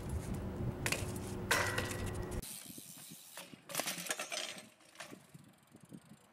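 A BMX bike knocking against a concrete ledge, then a few sharp clattering impacts as a rider and his BMX bike crash onto a concrete skatepark bowl, the bike's metal frame clanking as it falls away.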